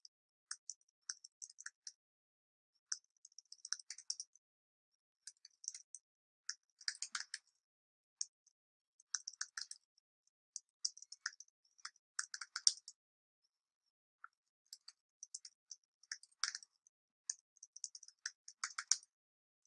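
Typing on a computer keyboard: faint keystrokes in short, irregular runs, with pauses between.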